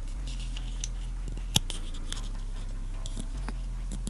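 Fingers handling an action figure's head and soft hood: light rubbing and small ticks, with one sharp click about one and a half seconds in. Under it a steady low bass tone shifts pitch a few times.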